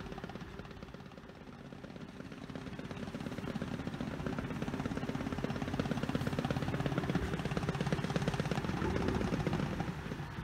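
Engine of an amphibious Truxor reed cutter running with a rapid, even chugging, growing louder over several seconds as the machine comes closer across the water, then dropping back near the end.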